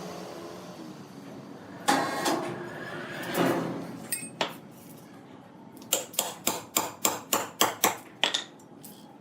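A workshop machine's hum fades out. About two seconds in comes a sudden clatter, followed by a rapid run of about nine sharp knocks, roughly four a second, like hammer blows.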